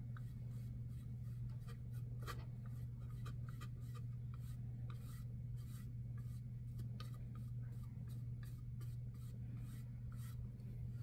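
Flat paintbrush swishing in short, irregular strokes as it spreads black paint over a cut-out plaque, over a steady low hum.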